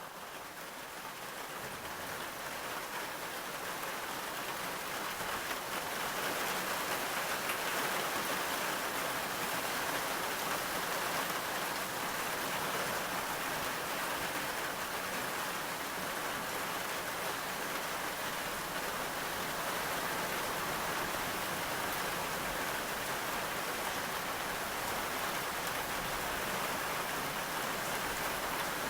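Steady rainfall, fading in over the first several seconds and then holding even.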